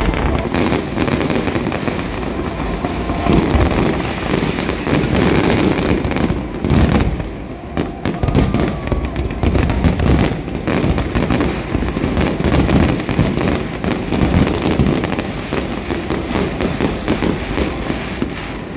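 Fireworks display: a dense, continuous barrage of bangs and crackling, many shells going off in quick succession, with a brief lull about eight seconds in.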